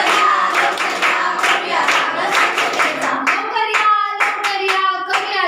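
A group of students singing a song together while clapping their hands in a steady beat, about three claps a second.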